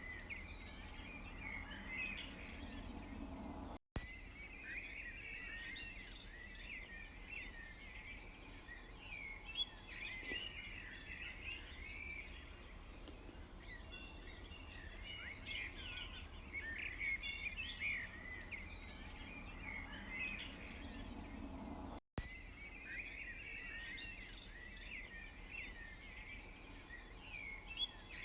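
A chorus of many small birds chirping and twittering at once, short overlapping calls over a faint low hum. The sound cuts out completely for an instant twice, about 4 seconds in and about 22 seconds in.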